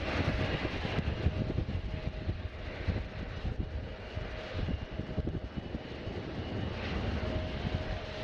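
Airliner engines running at a distance: a continuous noisy hum with a faint steady high whine over a choppy low rumble.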